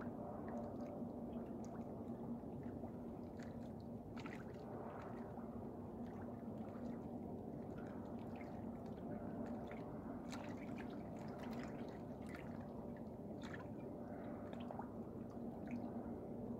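Dock water sloshing and dripping close to the microphone, with irregular small splashes and clicks over a steady low hum.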